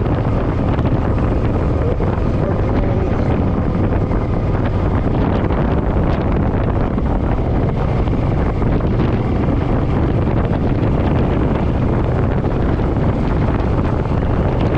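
Steady wind buffeting the microphone at riding speed on a Suzuki M50 motorcycle, with the bike's V-twin engine running underneath at a steady cruise.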